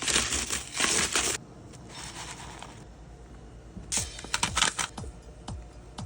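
Loud rustling noise for about a second and a half, fainter rustling after it, then a few sharp clicks about four seconds in. Music with a steady thumping beat, about two beats a second, starts there.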